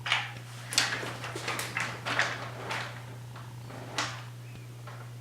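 A pet giving a string of short, sharp fake coughs, about six in four seconds.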